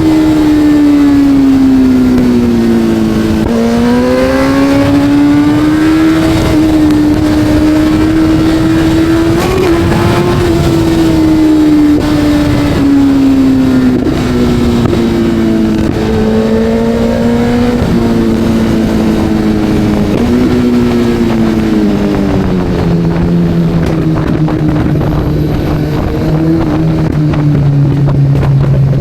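Kawasaki Z900 inline-four engine under way, its note rising and falling with the throttle and dropping to a lower, slower pitch for the last several seconds, over steady wind noise.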